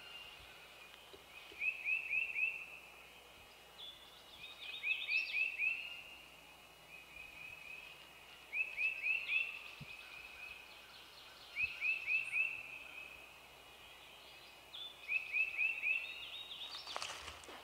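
A bird singing a short phrase of four or five quick slurred notes, repeated five times every three to four seconds. A brief rustle comes near the end.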